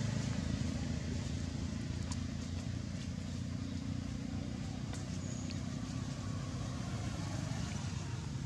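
A motor running steadily somewhere off-picture: a low, even drone, with a few faint ticks over it.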